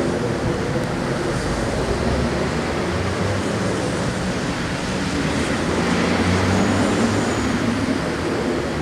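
A loud, continuous low rumbling drone of unidentified origin, with low humming tones in it, swelling slightly in loudness past the middle. It is louder than a jet airplane flying low.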